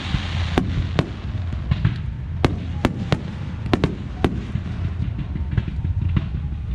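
Fireworks display: aerial shells bursting with sharp bangs at irregular intervals, about ten in all, over a steady low rumble.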